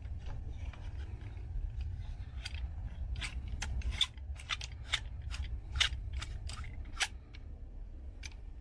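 Aluminium microscope stand parts being handled and screwed together by hand: irregular sharp metallic clicks and taps, most frequent in the middle stretch, over a steady low hum.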